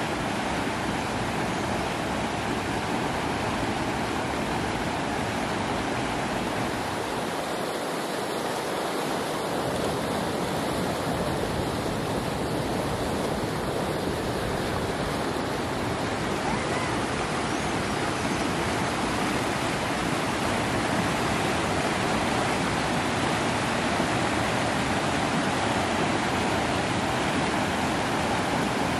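Shallow rocky river running over stones: a steady rush of water.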